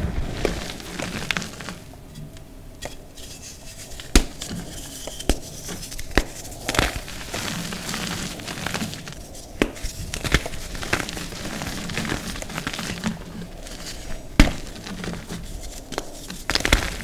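Hands squeezing and crumbling dusty, powdery gym chalk, a soft crunchy rustle with sharp crisp crunches every second or few. Near the end, a chunk of reformed gym chalk snaps apart between the fingers.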